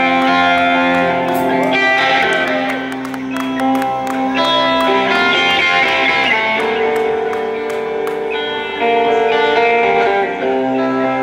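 Live rock band playing an instrumental passage between vocal lines, led by electric guitar with long sustained notes.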